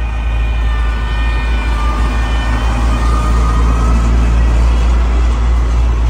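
Diesel engine of heavy earthmoving machinery running, with a steady low rumble and a faint whine above it.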